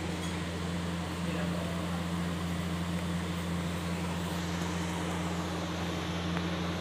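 Steady machine hum with a low drone and an even airy hiss, unchanging throughout.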